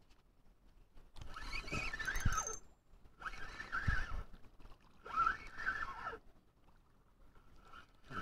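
Spinning reel cranked in four short bursts, reeling in a hooked pike, with a couple of dull knocks in between.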